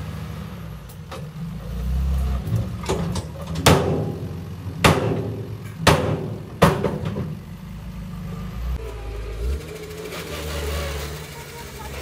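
Dump truck's diesel engine running steadily while the raised bed tips its load of soil and lowers again, with four sharp knocks between about three and a half and seven seconds in.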